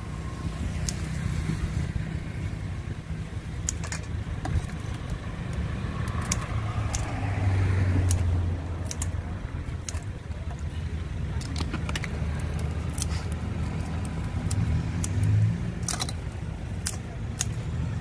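Kitchen scissors snipping a crab over a steel mixing bowl: scattered clicks and clinks over a low, steady background rumble.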